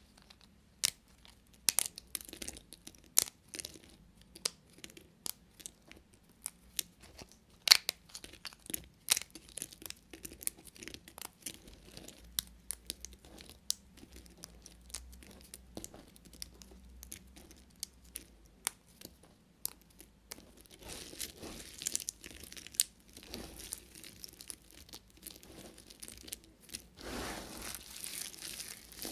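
Knife cutting through dry bar soap: crisp, separate cracks and snaps as the blade breaks through, turning into denser crumbly scraping and crunching about two-thirds of the way in.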